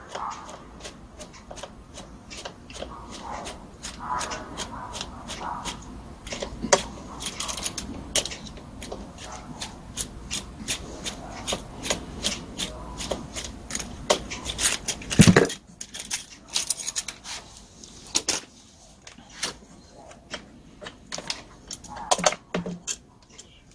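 Screwdriver working the screws and parts of a butane-powered brush cutter's carburetor during disassembly for cleaning: a run of light metallic clicks, scrapes and rattles, with one heavier knock about 15 seconds in.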